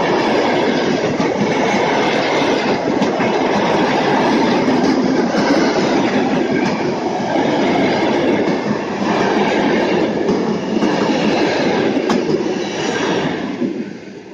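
TLK express passenger coaches passing close by: a loud, steady rumble of wheels on rail with a clatter of wheelsets over the rail joints. The noise falls away near the end as the last coach goes past.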